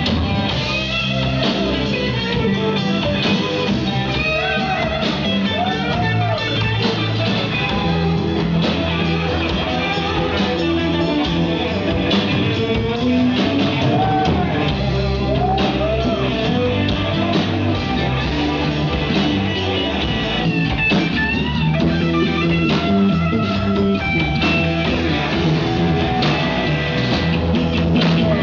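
Rock band playing a slow rock song: electric guitar with notes bending up and down over bass guitar and a drum kit.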